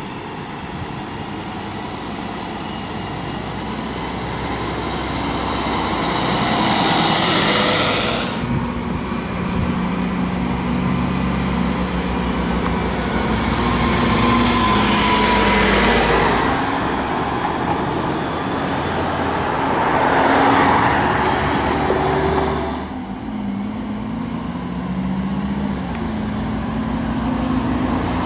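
City buses driving slowly past at close range, engines running with the note shifting up and down. The noise swells three times as a bus passes close by.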